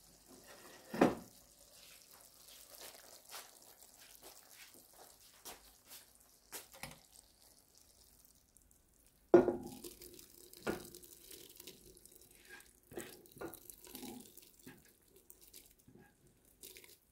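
Plastic spatula scraping and tapping against a frying pan as wet seafood in tomato sauce is spooned into a cast-iron pot of rice, with soft wet sliding and several knocks, the loudest about nine seconds in.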